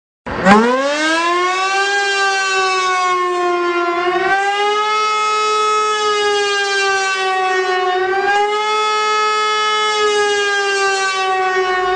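A siren wailing. It starts suddenly and winds up steeply in pitch over about a second, then holds a high, steady wail that sags slightly and swells back up about every four seconds.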